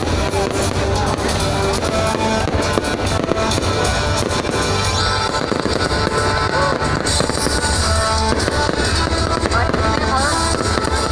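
Fireworks bursting and crackling in a dense, continuous barrage, with music with a steady bass line playing loudly alongside.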